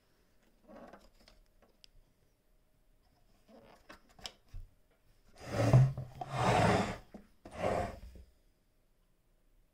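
The chrome bobbin slide plate on a Singer 99K sewing machine bed is slid open and shut by hand. There are a few light clicks, then three short metal-on-metal scrapes, the first the loudest.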